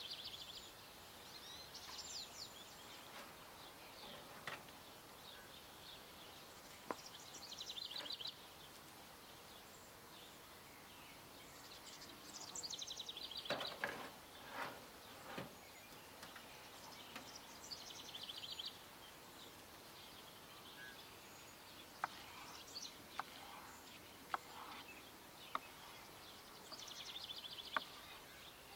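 A small songbird singing short phrases of rapid high notes, each about a second long, every few seconds over a faint outdoor background. Occasional sharp clicks and knocks break in, the loudest in a short cluster about halfway through.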